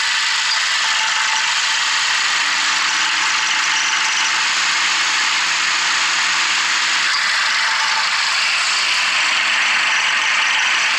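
Petrol engine knocking (pinking): a steady, dense metallic rattle, the 'kili kili' knock heard when the engine labours under load on a steep climb or with a heavy load. It is the sign of fuel burning on its own, without or ahead of the spark, as the engine overheats.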